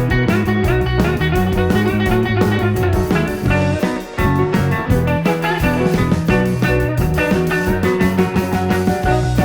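Background rock music with plucked guitar over a steady drum beat.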